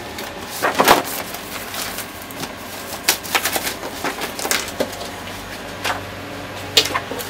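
Papers and a folder being shuffled and handled on a desk: scattered rustles and light knocks over a faint steady low hum.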